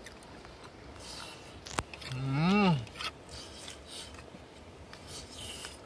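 A man's drawn-out "mmm" of enjoyment while eating, about two seconds in, its pitch rising then falling. A sharp click comes just before it, and faint scraping noises run underneath.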